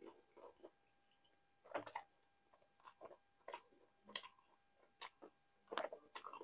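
Faint, wet chewing of a soft mouthful of nihari with maghaz (slow-cooked brain), heard as irregular small mouth smacks every half second or so.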